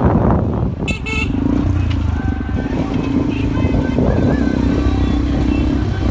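Honda XR125 single-cylinder four-stroke motorcycle engine running steadily while riding. Wind buffets the microphone for the first second, and a short high-pitched horn toot sounds about a second in.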